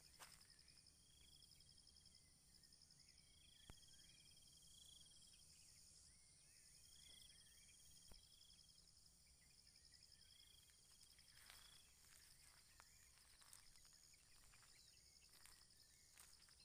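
Faint outdoor ambience of insects trilling steadily at a high pitch, with a higher note about a second long repeating every three seconds or so, a few brief chirps and a couple of soft clicks.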